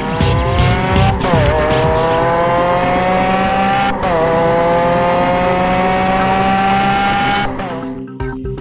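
Formula 1 car engine sound effect, running at high revs and climbing slowly in pitch, with sudden drops in pitch at upshifts about a second in and about four seconds in, then falling away near the end. Background music plays underneath.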